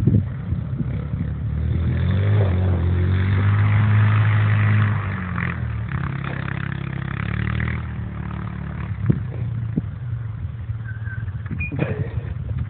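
A vehicle engine revving on a dirt cross track: its pitch climbs over the first few seconds and stays high until about five seconds in, then eases off and runs more evenly, with a couple of brief knocks later on.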